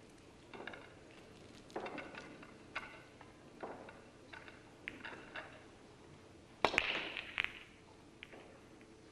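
Pool break shot: the cue ball cracks into the nine-ball rack, followed by about a second of balls clattering against each other and the cushions. Fainter scattered knocks come before it.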